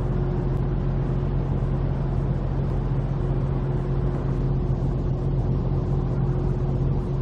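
A car running steadily: a low, even engine hum with road noise, holding one pitch throughout.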